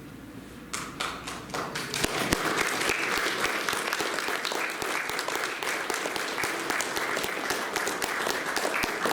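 A congregation clapping, starting about a second in and swelling into sustained applause for the veterans and service members standing.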